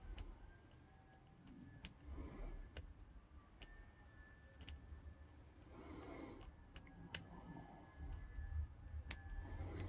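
Faint, irregular metallic clicks and ticks of a steel hook pick working the pin stack inside a brass padlock's keyway under tension, with light handling noise.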